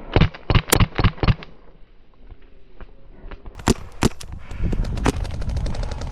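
Paintball markers firing. A quick string of about five shots comes in the first second and a half, then a few single shots near the middle. Toward the end, fainter rapid fire rattles from further off.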